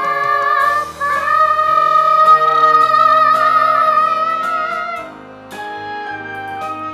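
A female voice sings a musical-theatre song over instrumental accompaniment, holding one long high note with vibrato. The note ends about five seconds in, and the accompaniment carries on more softly.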